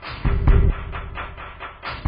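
Background music with a fast, steady beat and heavy low drum hits.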